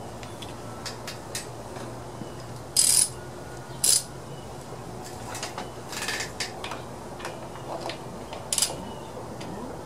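Hand tools clicking and clinking against metal while the carburetor float bowl is worked off a small Briggs & Stratton engine: scattered light clicks with a few short, sharp rattles, the loudest about three and four seconds in.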